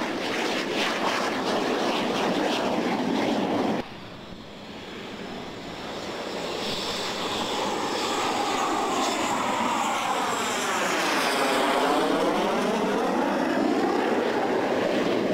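X-47B unmanned combat air vehicle's single turbofan jet engine running as it comes in on approach with gear down. It cuts off abruptly about four seconds in, then swells again as the drone flies low past to touch down, with a whooshing sweep that falls and then rises in pitch as it goes by.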